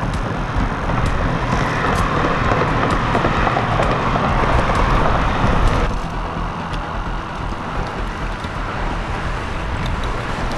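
Steady road traffic noise from vehicles crossing a long highway bridge, with a low rumble under it. The sound drops slightly about six seconds in.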